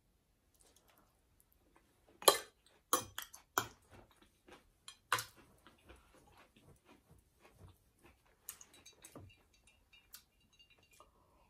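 A metal fork clinking and scraping on a ceramic dinner plate: a few sharp clinks in the first half, then lighter, quicker taps.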